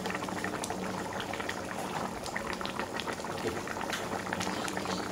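Coconut-milk chicken curry boiling in a wok, a steady run of small bubbling pops and spatters.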